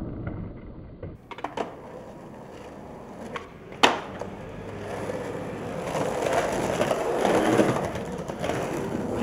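Skateboard on pavement: a few light board clicks, a sharp clack of the board about four seconds in, then urethane wheels rolling over concrete and asphalt, the rolling growing louder toward the end.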